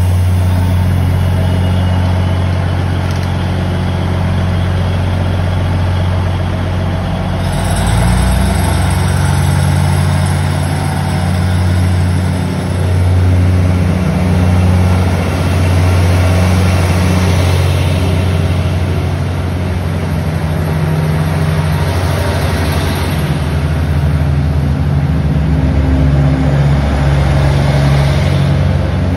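Diesel engines of a DR3100 diesel multiple unit running under load as the train pulls away from the platform, a loud, steady low drone whose pitch shifts up and down a few times.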